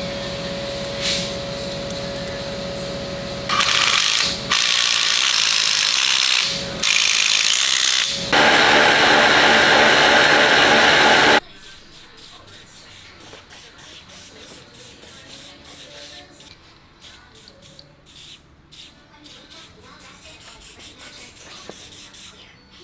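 Aerosol spray paint can spraying black paint onto small engine hardware (bolts and a washer) in four hissing bursts, the last held for about three seconds. A steady hum comes before it, and faint quick ticking follows.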